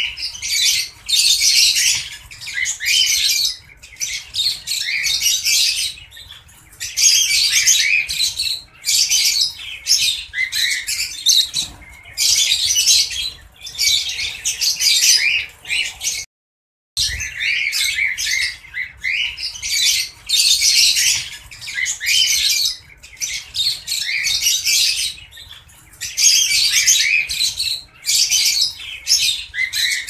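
A cage of lovebirds chattering: shrill high chirps and squawks in bursts of a second or two with short pauses between, cut off by a moment of silence just past halfway.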